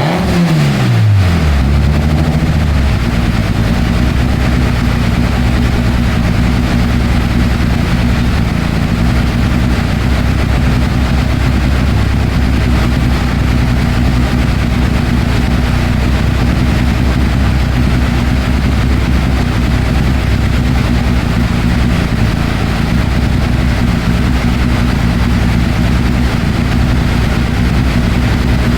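Toyota Corolla AE82 engine with 300/294 camshafts, on a dyno: the revs fall away over the first couple of seconds, then it settles into a steady idle.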